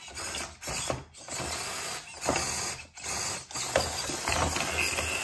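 Mini RC crawler's small electric motor and gearbox running in about five short bursts of throttle. The wheels push against a Duplo brick glued on the ramp, and the truck does not get over it.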